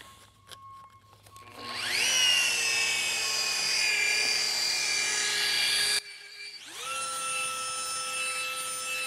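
Small FLEX electric polisher with a black finishing pad, buffing a headlight lens with final polish. Its motor whines up to speed about a second and a half in and runs steadily. It stops abruptly about six seconds in, then spins up again a moment later and runs steadily.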